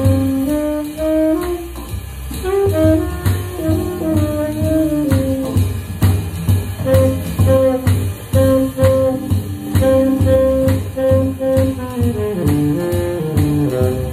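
Tenor saxophone playing a blues melody of held notes and short phrases over a drum kit, with a steady low bass pulse about twice a second. Near the end the saxophone plays a falling run of notes.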